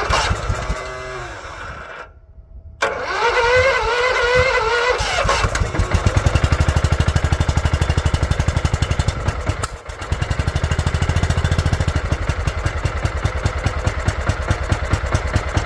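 Lawn tractor's small gasoline engine running just after a cold start. It drops out briefly near the start, comes back suddenly about three seconds in, then settles into a steady, even firing rhythm with a short dip about ten seconds in. It is running to burn off excess gas that got into the exhaust.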